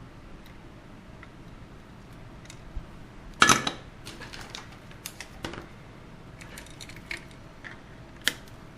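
Scattered sharp clicks and clinks of small metal hand tools and parts being handled on a workbench, one louder click about three and a half seconds in and several lighter ones after.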